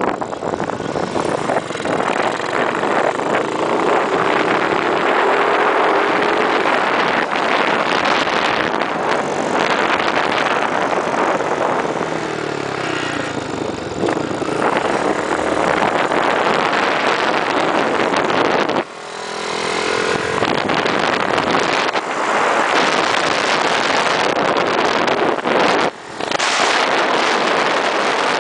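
Scooter ridden at speed around a race track: heavy wind rush on the microphone over the scooter's engine. The engine note rises a few seconds in and again about two-thirds of the way through.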